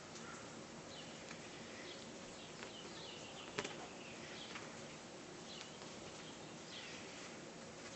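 Faint, short high chirps scattered over a steady low hiss, with one sharp tap about three and a half seconds in.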